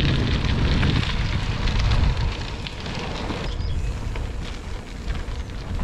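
Wind buffeting the microphone of a camera carried on a moving bicycle: a low, even rumble with a constant crackle, easing a little about two seconds in.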